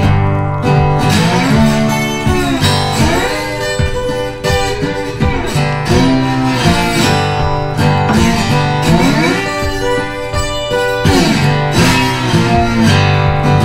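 Background music led by acoustic guitar, strummed, with notes sliding up and down.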